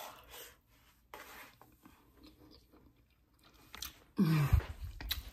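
A person chewing food, with soft crunching mouth noises. A little after four seconds in, a short hum from the eater, falling in pitch, is the loudest sound.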